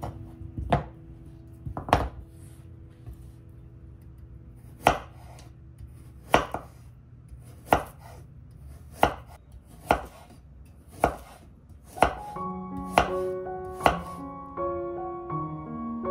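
Kitchen knife slicing a halved carrot on a bamboo cutting board: about eleven separate chops, roughly one a second. Soft background music runs underneath, with a piano melody coming in near the end.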